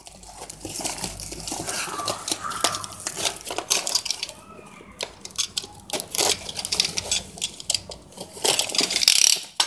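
Plastic packaging crinkling and rustling as a boxed product is worked out of its plastic mailer wrap, with many small irregular clicks and taps from handling.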